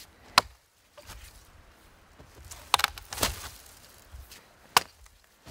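An axe chopping into a wooden pole lying on the ground, cutting it to length: four sharp strikes, two of them close together past the middle.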